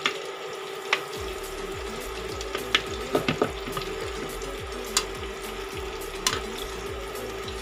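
Salmon steaks frying with onions in butter and oil in a nonstick pan, a steady sizzle. A utensil clicks against the pan a few times, several clicks close together about three seconds in.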